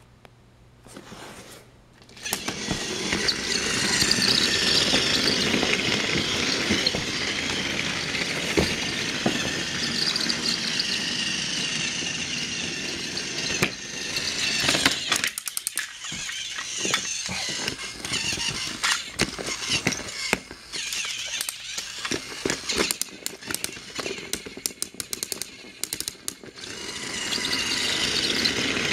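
Battery-operated Thomas the Tank Engine toy train running on plastic track: its small electric motor and gears whir while the wheels rattle over the track. The sound starts about two seconds in and breaks into irregular clicks midway. It is loud and steady again near the end, as the engine passes close.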